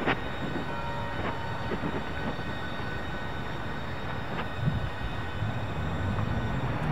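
A steady low outdoor rumble with a few irregular light steps or clicks over it.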